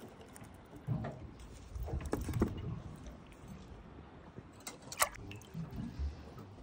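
Low rumble of water moving around a small boat, with a few light clicks and taps and one sharper click about five seconds in.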